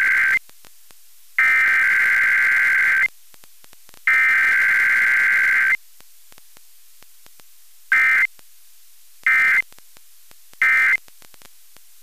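Emergency Alert System SAME digital data bursts for a required weekly test. The header is sent three times as long screeching bursts, then the end-of-message code is sent three times as short bursts. There is no attention tone or voice message between them.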